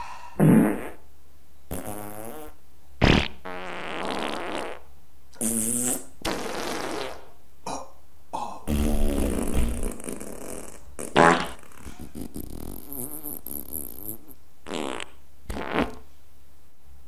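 A string of about ten fart sounds, one after another. Some are short, loud blasts and others are drawn out and fluttering for a second or more. They are heard in place of burps.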